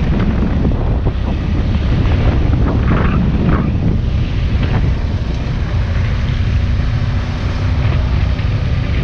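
BMW F800 motorcycle's parallel-twin engine running steadily while riding, with heavy wind noise buffeting the microphone.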